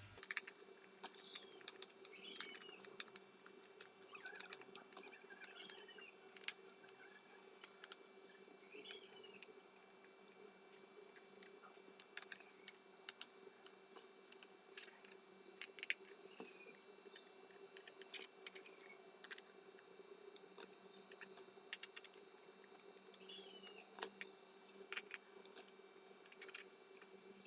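Faint birds chirping now and then, with scattered light clicks and a steady low hum underneath.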